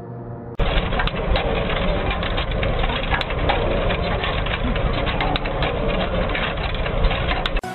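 Construction machinery engine running steadily, with irregular clatter and crunching over a low rumble. It cuts in about half a second in and stops abruptly just before the end.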